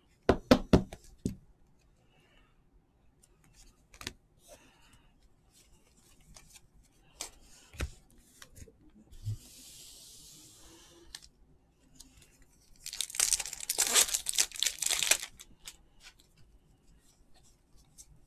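A trading-card pack wrapper being torn open: a long, dense rip about 13 seconds in, the loudest sound here, with scattered small clicks and rustles of cards being handled around it. Near the start there is a quick run of sharp knocks.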